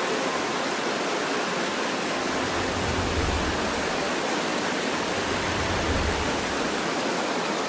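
Steady rushing of fast-flowing floodwater, with a low rumble in the middle.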